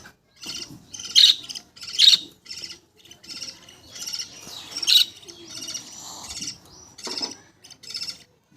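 Budgerigars chirping and chattering: a rapid run of short, high calls, with louder sharp calls about one second, two seconds and five seconds in.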